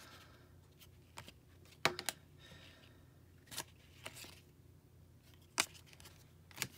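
Trading cards being flipped through by hand: faint sliding and a few short card clicks spread out, the sharpest about two seconds in, as each card is moved to the back of the stack.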